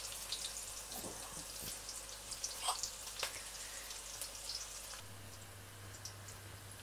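Sliced red onions frying in oil in a stainless steel pot: a soft steady sizzle with scattered light crackles as they brown.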